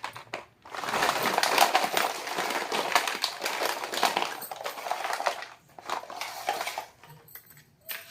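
Plastic packaging crinkling and rustling as it is handled and opened, with a few separate light clicks and rustles in the last couple of seconds.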